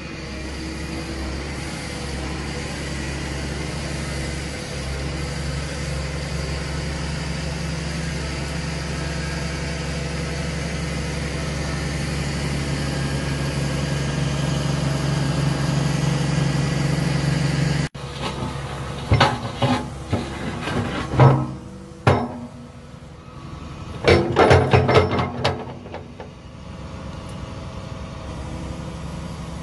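Excavator's diesel engine running steadily under hydraulic load and slowly getting louder while the rotating coupler turns a set of pallet forks. After a sudden cut, two clusters of loud metal clanks as the forks are set down and a bucket is coupled on, over the engine idling.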